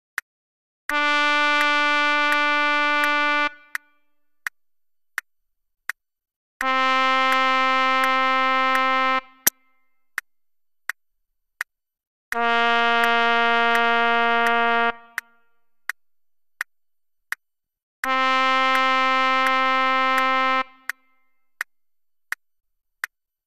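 Trumpet sound from notation-software playback holding four long notes, about two and a half seconds each with a rest between. The notes step down twice and then back up, written E, D, C, D. A metronome clicks steadily at 84 beats a minute throughout.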